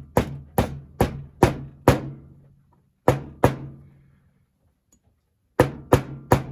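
Small hammer tapping a sleeve of 1/8-inch tubing down onto the end of a model locomotive drive shaft resting on a hard surface. Five sharp taps about two a second, a pause, two more, then three more near the end, each leaving a short low ring.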